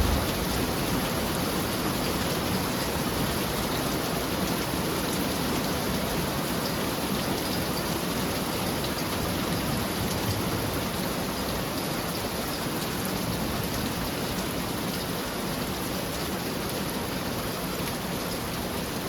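Heavy rain pouring steadily in a thunderstorm, a dense even hiss that eases slightly toward the end.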